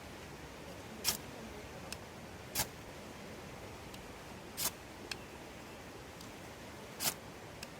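Wood fire crackling: irregular sharp pops and snaps every second or two over a low steady background.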